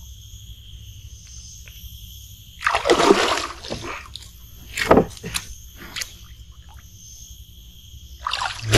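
Water splashing as a large snakehead, about 4 to 5 kilos, is landed from the swamp: one heavy splash about three seconds in, a sharp knock a couple of seconds later, and more splashing near the end, over a steady high-pitched drone.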